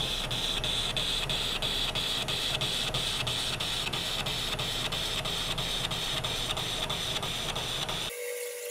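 Metal lathe cutting alloy steel: a steady high cutting hiss with an even tick about four times a second. Near the end it cuts off abruptly to a quieter, steady lathe hum with one mid-pitched tone.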